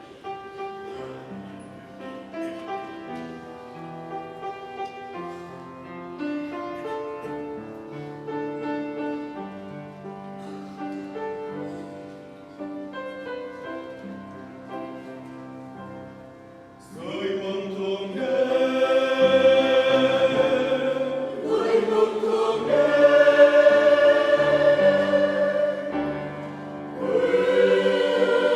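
Church choir singing a harmonized hymn arrangement. For the first 17 seconds or so, a quieter instrumental introduction plays sustained notes; then the mixed choir comes in and the sound grows much louder.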